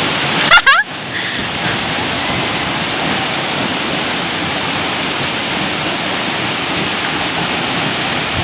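Waterfall rushing steadily. A brief, very loud burst of sound cuts in about half a second in.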